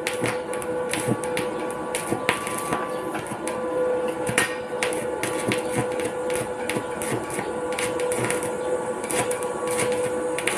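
Electric arc welding on a metal railing: the arc crackling and sputtering steadily, with a steady hum underneath.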